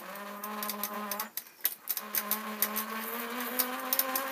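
A steady pitched hum is held for about a second, stops briefly, then is held again for several seconds, rising slightly in pitch, over scattered crackling clicks.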